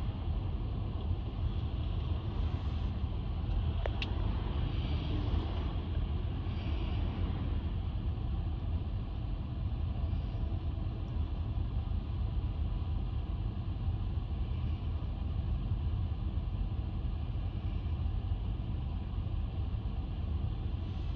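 Steady low rumble of city street traffic, with a single sharp click about four seconds in.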